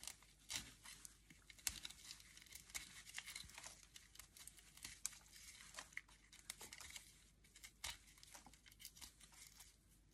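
A large knife cutting and scraping the dry, wiry roots off the base of an amaryllis (hippeastrum) bulb, giving faint, irregular crackling and tearing.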